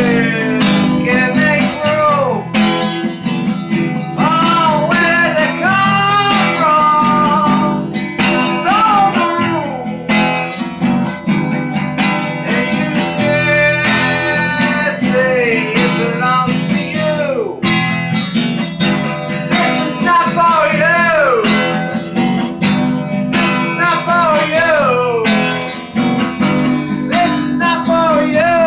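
Guitar strummed steadily in chords, with a voice singing over it in sliding, wavering notes.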